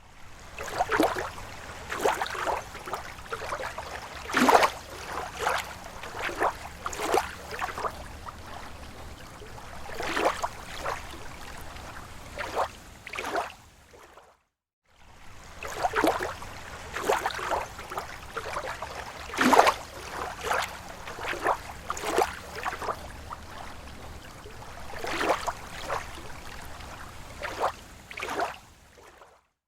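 Small slow waves lapping on a lake shore: irregular slaps and splashes of water over a steady wash. About halfway through the sound drops out briefly, then the same run of laps starts again.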